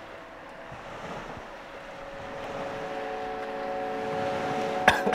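Wind and surf noise under a soft drone of several held steady tones that swells in over the second half. Near the end comes a sudden burst of coughing from the woman who has just gulped red wine straight from the bottle, though she had said she can't take it.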